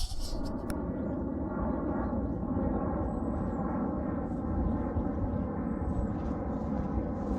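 A steady mechanical drone: a low hum made of several even, level tones that holds unchanged.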